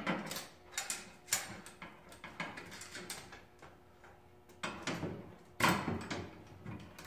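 Steel tape measure being pulled out and shifted against the steel rack uprights and rod, with a wrench in the same hand: a string of irregular metallic clicks and short scrapes, the sharpest a little over five seconds in.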